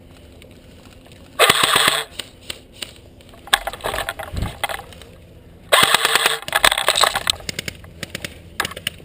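Airsoft electric gun firing two short full-auto bursts, about a second and a half in and again about six seconds in, with scattered single shots and clicks between them and near the end.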